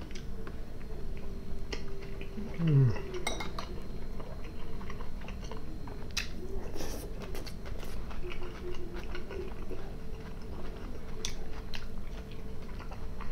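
Close-up eating: chewing and biting homemade meat cutlets, beetroot salad and black bread, with a metal fork clinking and scraping on a plate in scattered small clicks. A brief low falling hum sounds near three seconds in.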